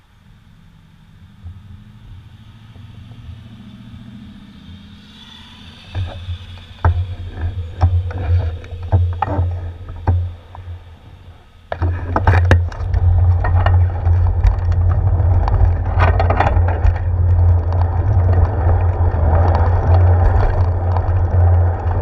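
Bicycle ride picked up by a handlebar-mounted GoPro Hero 4. It is quiet while the bike waits at the light. Knocks and rattles start about six seconds in as it moves off, and about halfway it turns suddenly into loud, steady wind and road noise with the mount rattling over the pavement.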